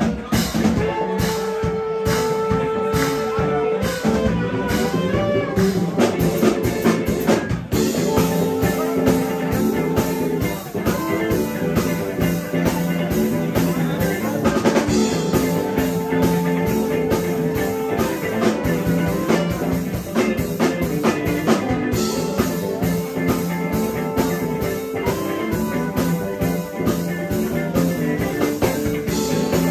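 Live band playing an instrumental blues-rock groove: drum kit, electric bass, electric guitars and saxophone, with held notes over a steady beat and a short break about eight seconds in.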